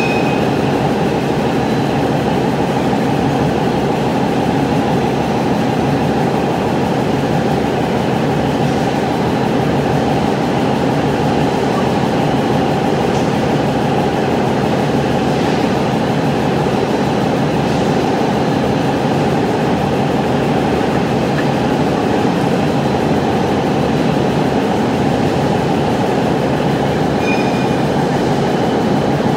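A concrete pile pump feeding machine running: the pile pump pushes concrete into a steel pile mould while the metering trolley carries the mould along its track. The noise is loud, steady and unbroken.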